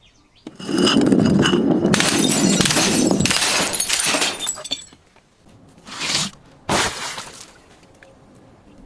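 Glass bottle breaking and being crushed: a crunching, crackling shatter of glass lasting about four seconds, then two short crunches a little later.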